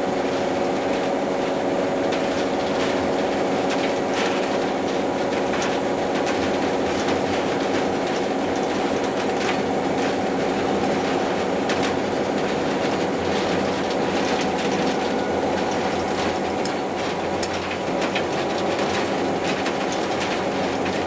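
Diesel locomotive's engine running steadily, heard from inside the cab while the locomotive is under way, with scattered clicks and rattles from the wheels and cab.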